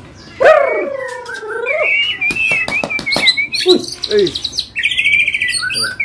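White-rumped shama (murai batu) singing in its cage. It opens with a loud, drawn-out whistled note that dips and rises about half a second in, then moves into high warbling phrases and fast trills.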